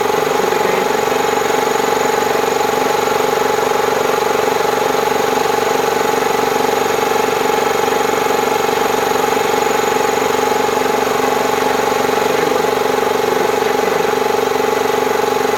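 Bauer high-pressure breathing-air compressor running steadily with an even, unchanging hum over hiss. It is topping up an airgun fill tank that is already near full at about 4,500 psi.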